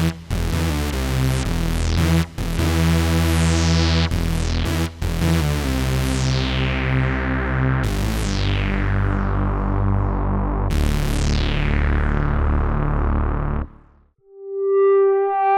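GForce Oddity 3, a software emulation of the ARP Odyssey analog synthesizer, playing a low, buzzy patch: held notes that each open with a bright filter sweep closing downward, changing every two to three seconds. It stops about fourteen seconds in, and a softer held tone swells in near the end.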